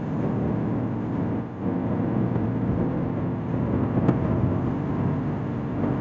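Steady rumble of wind and road noise from travelling along a highway, dipping briefly about one and a half seconds in, with a short click about four seconds in.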